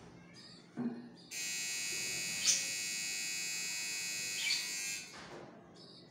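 A loud, steady electric buzz at one even pitch that starts abruptly and runs for nearly four seconds before cutting off. A short thump comes just before it, and faint short chirps from caged budgerigars sound around it.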